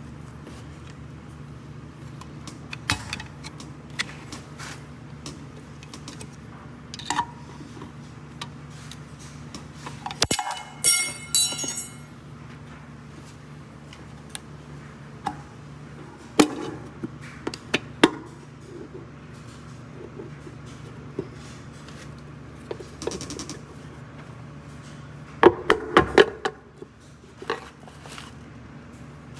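Hand tools on a rebuilt water pump's metal housing: a screwdriver and pick prying at the cover plate, with scattered clicks, taps and scrapes. There is a bright metallic ringing clatter about ten seconds in and a cluster of knocks near the end, over a steady low hum.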